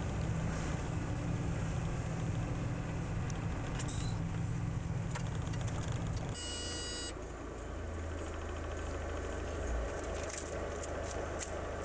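Volvo F12 truck's diesel engine droning steadily, heard from inside the cab while driving. About six seconds in a brief high buzz sounds, and after it the drone sits lower in pitch.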